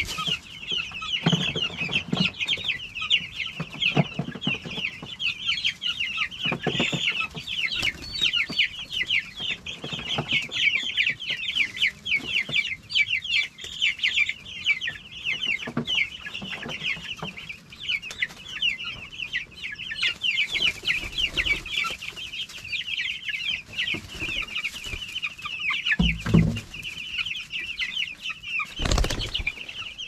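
A crowd of young meat-bird chicks peeping without pause, many quick high chirps overlapping, with a couple of dull thumps near the end.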